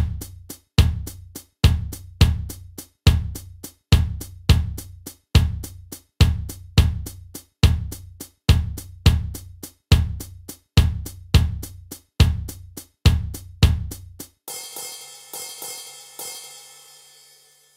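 Isolated drum kit track: a steady beat of bass drum hits, about one every three quarters of a second, under a stream of quick cymbal ticks. About fourteen seconds in, the bass drum stops and a cymbal rings out with a few lighter strikes, fading away.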